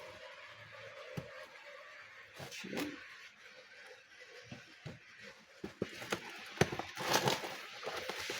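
A cardboard shipping box being cut and pulled open with a knife, one-handed: scattered clicks, scrapes and knocks, with bursts of cardboard and packing rustling that grow busier and louder near the end.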